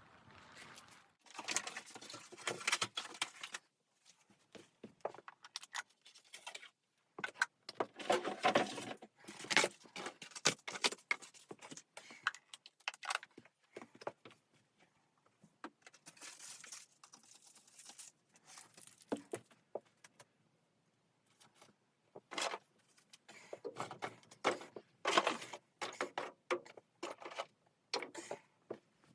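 Objects being handled: irregular bursts of clinking and rustling, separated by short pauses.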